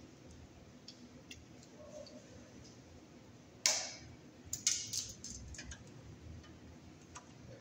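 Sharp clicks and ticks of blue-handled wire strippers and wire against a metal sub-panel box. The loudest is a single snap about three and a half seconds in, followed a second later by a quick cluster of clicks.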